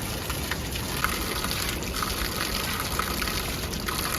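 Steady rushing water, like a stream running close by.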